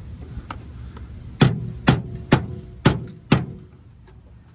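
Hammer blows on the steel body panel of a 1977 Camaro, beating the metal into shape: a light tap, then five sharp strikes about two a second, each leaving a brief metallic ring.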